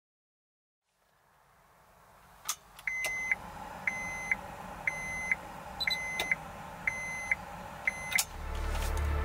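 Electronic warning chime inside a Honda S2000 with the ignition switched on, beeping six times at about one a second, with a sharp click before the first beep and another after the last. A low steady hum comes in near the end.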